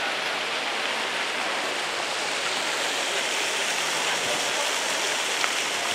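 Ground-level fountain jets splashing onto stone paving: a steady rushing hiss of falling water, with one short click near the end.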